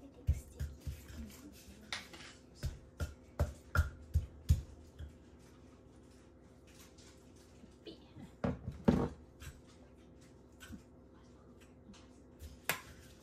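Wooden pestle pounding in a clay mortar: irregular dull thuds, several in the first five seconds, then sparser, with a louder pair about nine seconds in, over a faint steady hum.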